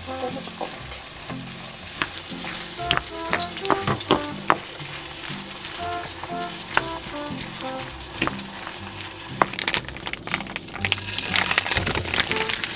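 Chopsticks stirring a mayonnaise-dressed macaroni salad in a stainless steel bowl: a wet, hissy mixing sound with sharp clicks of the sticks against the metal, over light background music. Near the end, a hamburger steak patty sizzling in oil in a frying pan.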